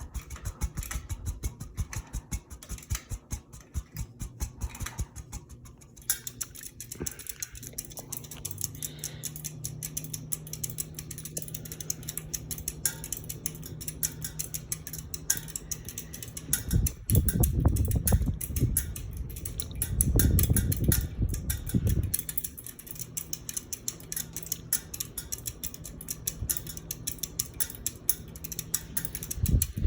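A 52-inch Harbor Breeze Builders Best ceiling fan running on high: a rapid ticking at first, then a steady low motor hum. Two loud low rumbles come about halfway through.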